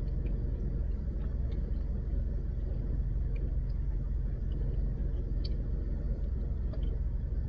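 Steady low rumble heard inside a car's cabin, with a few faint mouth clicks as someone chews.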